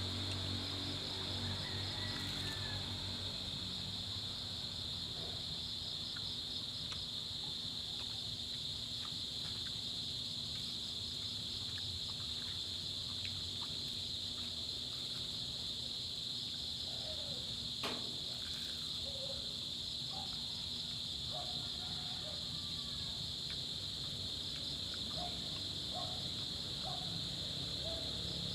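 Steady, high-pitched chorus of insects, crickets by their sound, droning without a break, with a few faint short chirps and a single sharp click about two-thirds of the way through.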